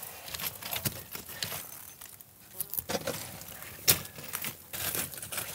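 Footsteps on loose rock and gravel with rustling of dry grass and clothing: an irregular scatter of sharp clicks and knocks, the loudest one a little before the end.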